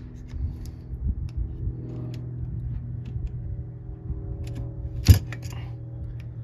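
Small metallic clicks and taps of tools working the parts of a Saginaw Type II power steering pump out of its housing, with one sharp knock about five seconds in, over a steady low hum.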